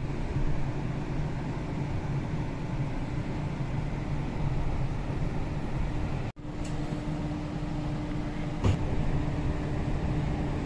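Interior of an electric tram in motion: a steady rumble of the running gear with a steady hum under it. The sound cuts out for an instant about six seconds in, and there is a single sharp click a little before nine seconds.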